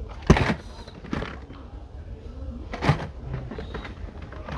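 Carded Hot Wheels cars in plastic blister packs clacking and rustling against each other as a hand rifles through a bin of them, with a sharp clack just after the start and another near three seconds in.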